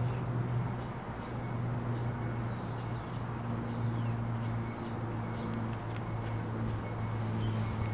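Outdoor ambience: a steady low hum throughout, with scattered short, high-pitched chirps and a few faint clicks.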